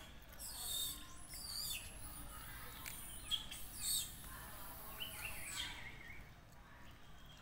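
Birds chirping and calling, with many quick, high, gliding notes that thin out after about six seconds.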